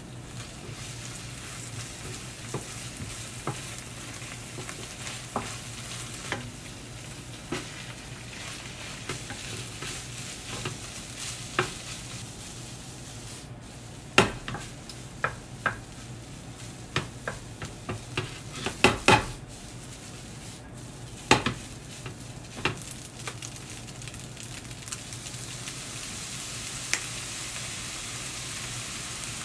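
Fried rice sizzling in a nonstick frying pan on an induction hob, stirred with a wooden spatula that knocks and scrapes against the pan. About halfway through, the pan is tossed, with a run of loud knocks.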